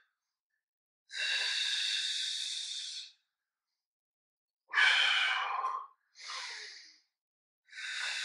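A man breathing out loudly through the mouth in about four long, hissing breaths, with dead silence between them: controlled Pilates breathing paced with a slow arm-and-leg reach in the box position.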